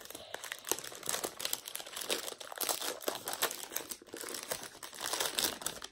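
Vegan Magnum ice cream bar's wrapper crinkling and crackling as it is worked open by hand, with a dense run of irregular crackles.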